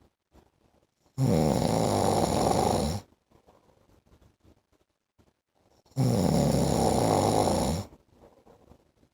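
A man snoring: two loud snores about two seconds long each, roughly five seconds apart, with quiet gaps between.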